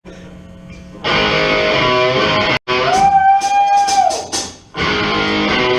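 Live rock band with amplified electric guitar: a low hum for about a second, then loud guitar playing. It cuts out for an instant, then a long held note rises, sustains and falls away before the band comes back in.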